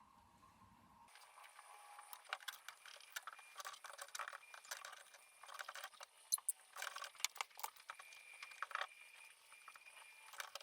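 Faint, irregular clicks and light metallic taps from handling a soldering tool and small metal parts while soldering a loose wire on a light fixture.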